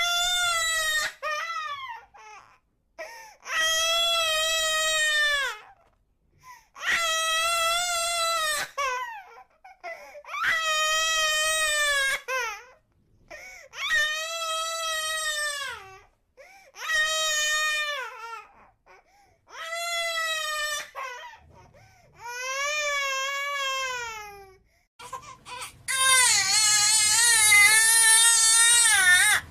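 A baby crying in a series of long wails, about nine of them, each one to two seconds long and falling in pitch at its end, with short breaths between. The last wail, near the end, is the loudest and most strained.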